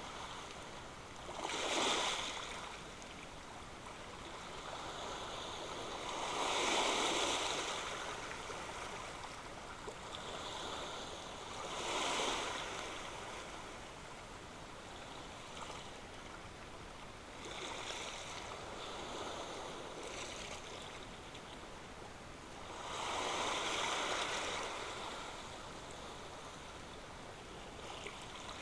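Ocean waves breaking on the shore: five swells, one about every five seconds, each rising and fading, with the steady hiss of moving water between them.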